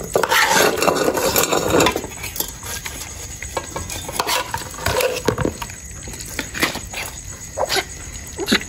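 Metal spoon scraping and scooping cooked rice in an aluminium pot for about two seconds, followed by scattered clinks and knocks of the aluminium pots as puppies eat from them.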